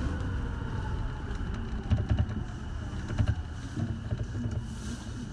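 Rubber-tyred Sapporo subway 5000-series train running through a tunnel, heard from inside the rear cab, with a low steady rumble and a couple of knocks about two and three seconds in. The noise eases down gradually as the train slows toward the station.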